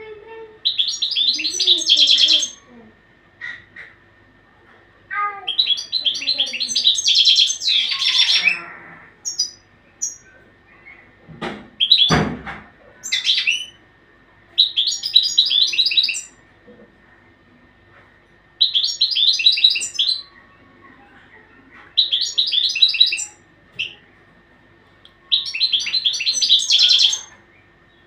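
Caged European goldfinch singing: seven bursts of rapid, high twittering song, each a second or two long, with short pauses between them. A low thump comes about halfway through.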